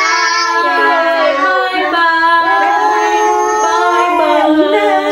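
Women and young children singing together, several voices holding long notes and gliding between them.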